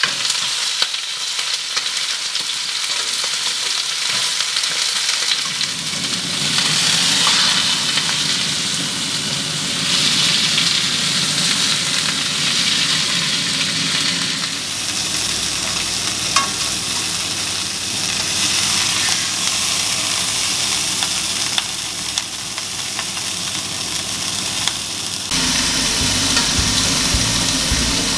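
Beef fillet searing in hot oil and garlic in a frying pan: a loud, steady sizzle that swells and eases as the meat is moved around. A low hum joins near the end.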